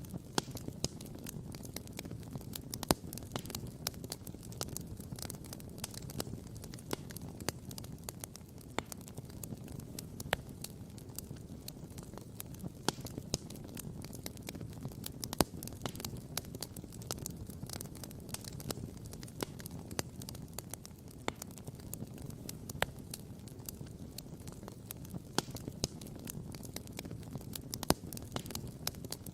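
Wood campfire crackling, with frequent sharp pops and snaps scattered irregularly over a steady low rush.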